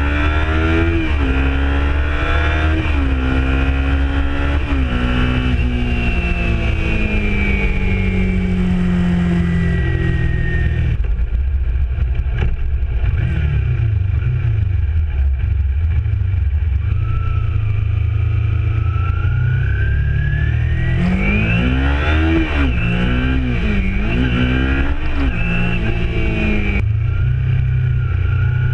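Kawasaki Ninja 300's parallel-twin engine through a Yoshimura exhaust, ridden through the gears. It revs up with a quick drop in pitch at each upshift, winds down and runs quieter for several seconds in the middle, then pulls up through the gears again near the end. A steady low rumble sits under it all.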